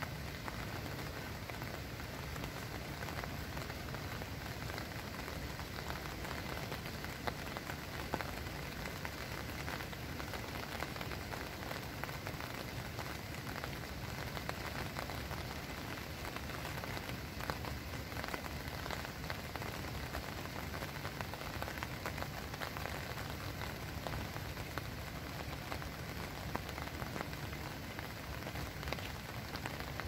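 Steady rain falling on an umbrella: a dense mass of drops hitting at once, with a few louder single drops standing out now and then.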